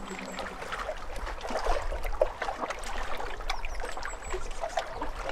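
Water lapping and trickling over a steady low rumble.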